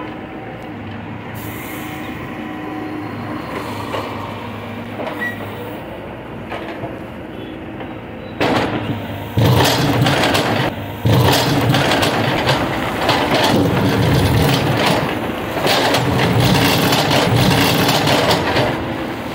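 Backhoe loader's diesel engine running steadily, then from about eight seconds in louder and working, with the steel bucket scraping and knocking through stony soil as it digs the trench.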